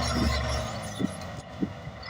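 Caterpillar D8 bulldozer running, its low engine rumble dropping away about half a second in, with two short knocks near the middle and toward the end.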